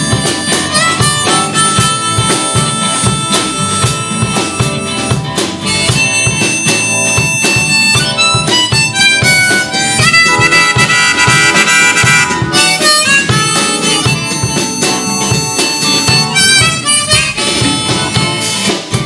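Live blues band playing an instrumental break: a sustained, bending lead line over bass, drums, keyboard and acoustic guitar.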